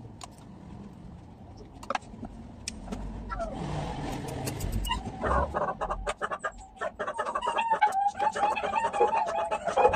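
Chickens clucking and crowing, a wavering pitched calling that starts about halfway through and grows louder, after a low rumble like a passing vehicle.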